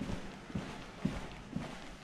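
Footsteps of a person walking at an even pace, about two steps a second.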